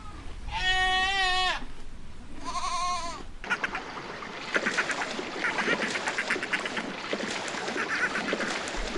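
Two wavering bleats from a goat or sheep-type animal, the second shorter and falling. About a third of the way in, they give way to a flock of poultry clucking and chattering.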